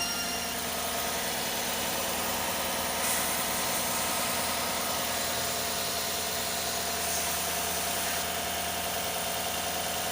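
Freshly installed replacement engine in a 2016 GMC Sierra idling steadily, just after its first start. It runs evenly and sounds good, with no knock.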